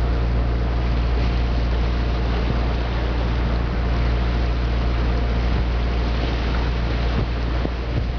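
A motor boat's engine running steadily underway, a low drone with a hum in it and a steady hiss over the top.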